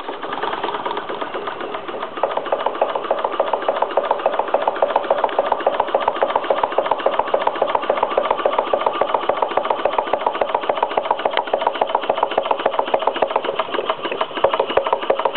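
Scale-model live steam engine, built after a 1910 Leipziger Maschinenfabrik machine, running steadily under steam with a rapid, even beat. It picks up and grows fuller about two seconds in.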